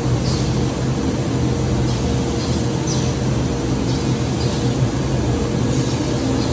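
Steady hum of running factory machinery, even in level throughout, with a few faint, short high chirps now and then.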